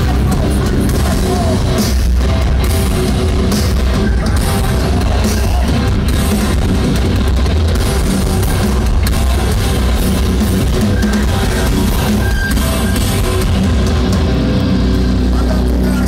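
Loud live heavy music played through a festival PA: distorted electric guitars and a drum kit, heard from inside the crowd.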